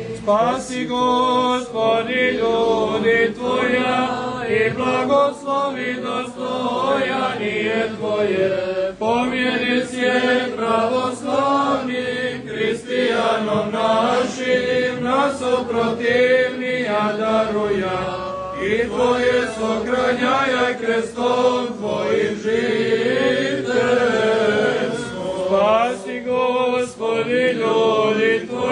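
Serbian Orthodox liturgical chanting for the blessing of water: voices singing a slow melody in long, held tones.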